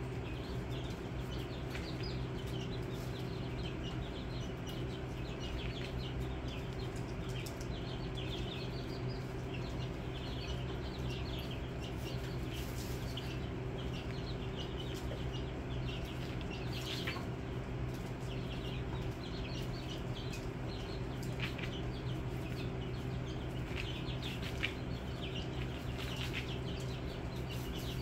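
A flock of young chicken chicks peeping, with many short high cheeps overlapping throughout. Under them runs a steady low hum.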